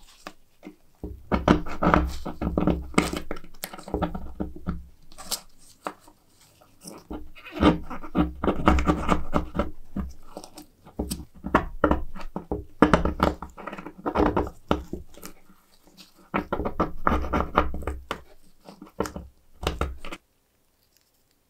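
Steel pick scraping and crunching dried adhesive or sealant off a thin metal monocular part, in four spells of gritty scratching with short pauses, stopping near the end.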